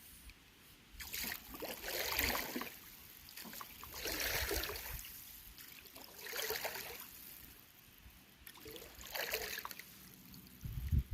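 Kayak paddle strokes: about four soft splashing swishes of the blade in the water, spaced roughly two and a half seconds apart.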